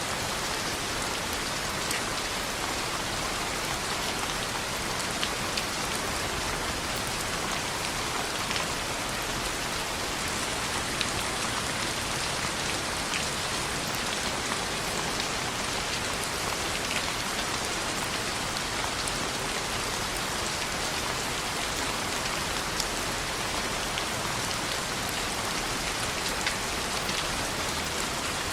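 Steady rain falling on a window, with scattered sharp clicks throughout.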